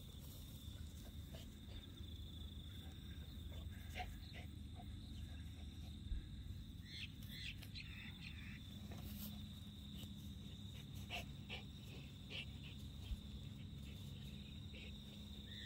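Faint outdoor background: a steady high-pitched insect trill, with a few bird chirps about seven to eight seconds in and scattered soft rustles and clicks.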